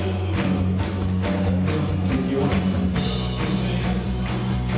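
A live rock band playing, with a drum kit keeping a steady beat over held bass notes and guitar. About three seconds in, the bass line changes and the sound grows brighter.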